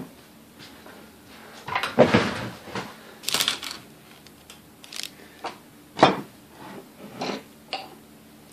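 Clunks and clatter of a Sunbeam Mixmaster's metal motor housing and hand tools being set down and handled on a workbench: a handful of separate knocks, the loudest about two seconds and six seconds in.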